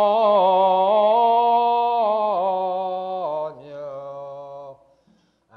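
Unaccompanied male voice singing slowly, holding long notes with small ornamental turns. The phrase falls and fades out near the end, with a short break before the next phrase.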